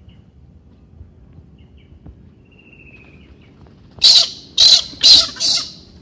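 Galah, a pink-and-grey cockatoo, giving four loud, harsh screeches in quick succession, starting about four seconds in.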